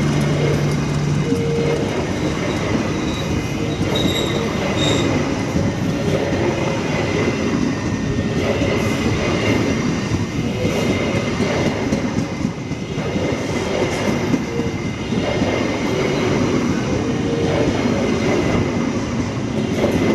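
A train of railway wagons rolling past, wheels rumbling and clacking over the rail joints with occasional wheel squeal. A low horn-like tone ends about a second in.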